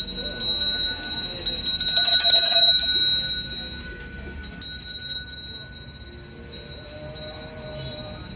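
A Balinese priest's hand bell (genta) rung rapidly in a steady run of strokes for about three seconds, loudest around two to three seconds in. It then rings on more faintly.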